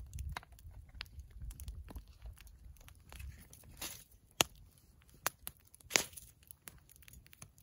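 Aluminum foil crinkling and seasoning containers being handled while a fish is seasoned on the foil, with scattered small clicks and a few sharp clicks, the loudest between about four and six seconds in.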